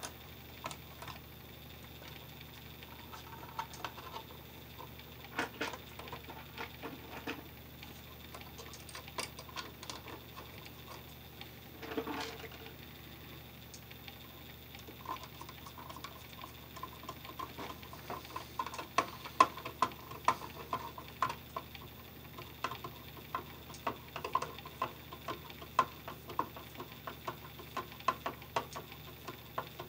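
Hand screwdriver driving a light switch's mounting screws into a plastic electrical box: a run of small, irregular clicks and ticks, denser and louder in the second half.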